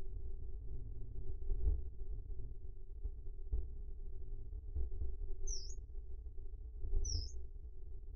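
Steady low rumbling outdoor ambience in a forest, with two short, high chirps from a small bird, one about five and a half seconds in and another a second and a half later.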